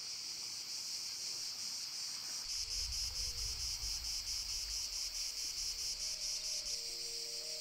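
Insects chirring in a steady, high-pitched drone that pulses about four times a second from about a third of the way in. A low rumble sits underneath through the middle.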